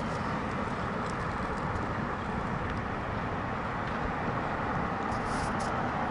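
Steady road traffic noise at a city intersection: cars passing make an even hiss with no distinct events.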